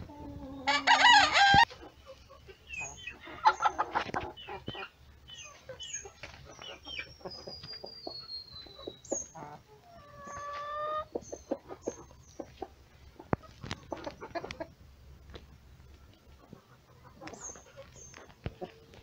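Free-range chickens: a rooster crows once, loudly, about a second in. Hens cluck and call at intervals through the rest.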